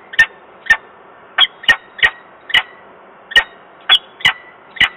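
Peregrine falcon giving a series of short, sharp calls, about a dozen in five seconds at uneven intervals, over a faint steady hiss.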